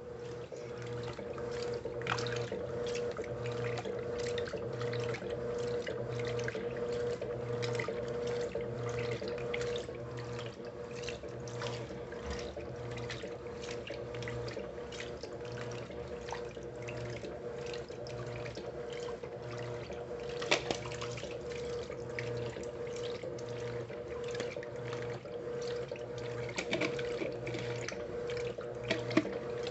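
Electrolux Essential Care LES11 washing machine filling on its high water level: water pouring and splashing into the tub, with a steady hum underneath.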